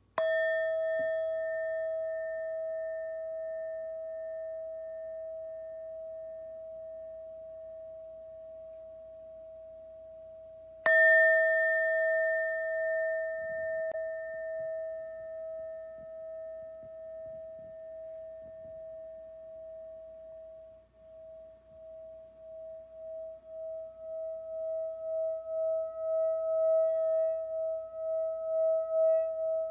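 Singing bowl struck and left to ring, its tone slowly fading, then struck again about eleven seconds in. From about twenty seconds in it is rubbed around the rim, and the ringing swells back up with a steady wavering pulse.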